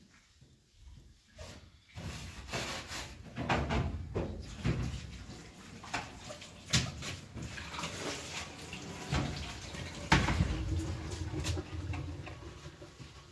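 Water running from a kitchen sink tap while things are washed, with a few sharp clinks and knocks of dishes or glass.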